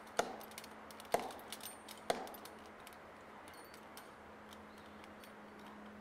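Three faint knocks, about a second apart, over a low steady hum.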